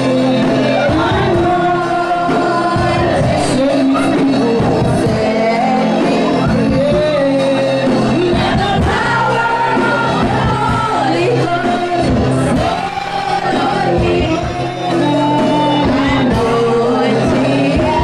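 Worship singing with instrumental backing: voices sing and call out over held low notes, loud and continuous, with a brief dip in level about thirteen seconds in.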